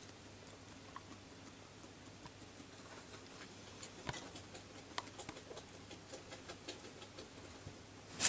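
Guinea pig nibbling and nosing a cardboard toilet-roll chew toy: faint, scattered small clicks and crunches, coming more often and a little louder in the second half.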